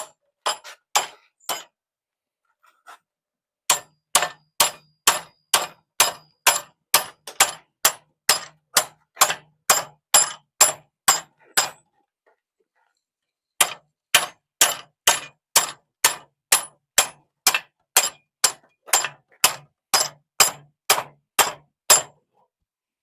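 Steady hand-hammer blows on hot steel at the anvil, about two a second with a bright ring, widening the punched hole in a forged bottle opener; the hammering comes in three runs with two short pauses.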